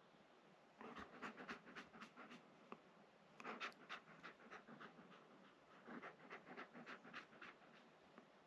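A dog panting faintly in three short bouts, several quick breaths a second, with pauses in between.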